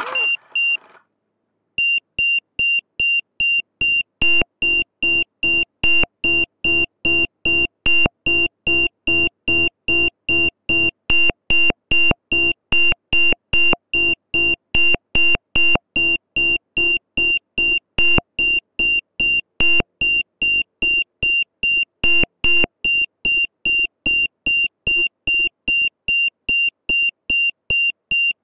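Electronic beeper sounding short, high-pitched beeps about twice a second, in a steady unbroken series starting about two seconds in.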